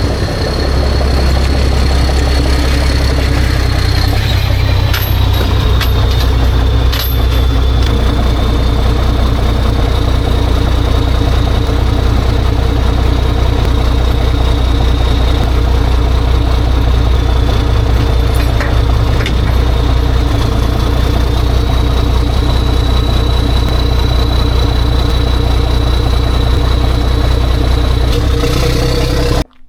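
A motor running steadily, a low hum with a thin high whine over it, cutting off suddenly near the end.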